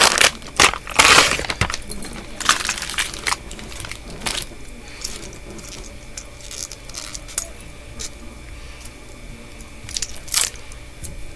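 Clear plastic bag crinkling and tearing as it is pulled open, loudest in the first couple of seconds, then scattered small clicks and jingles of metal hardware being handled, with one louder crinkle about ten seconds in.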